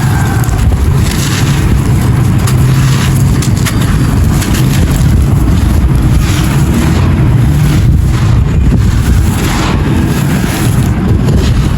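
Dry clay pot pieces being crushed and crumbled, a dense run of gritty crunches over a heavy low rumble.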